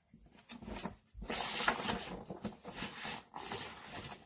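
Stiff cardboard pages of a children's board book being handled and turned, in several short rustles and rubs.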